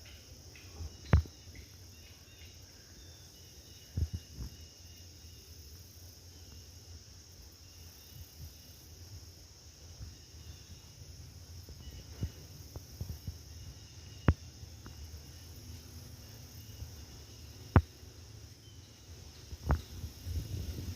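A steady, high-pitched insect chorus, with a low rumble underneath and a few sharp knocks scattered through it, the loudest about a second in and near the end.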